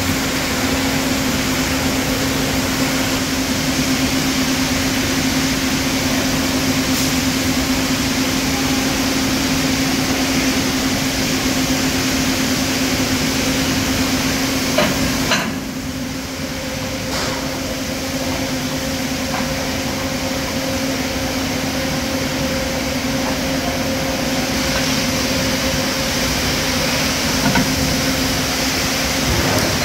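Steady mechanical hum of workshop machinery with a constant low drone, easing slightly about halfway through. A few light knocks can be heard as the ceramic backing strip is handled and fitted to the plates.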